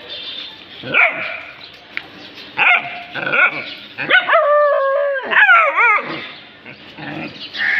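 A dog barking: a few short, sharp barks, then a long drawn-out call about halfway through, followed by a wavering, whining run of calls, and one more bark near the end.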